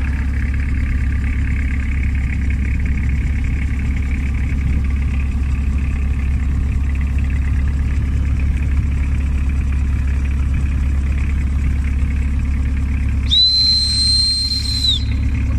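Boat's engine running steadily. Near the end, a single high, steady whistle held for about a second and a half.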